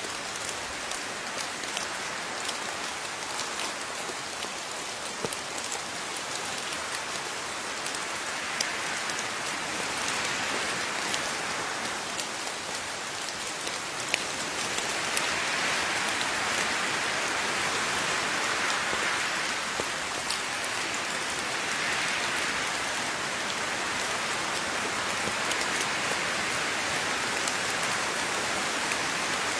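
Steady rain falling on surfaces, with scattered individual drops ticking through it; the rush swells and eases in slow waves, a little heavier in the second half.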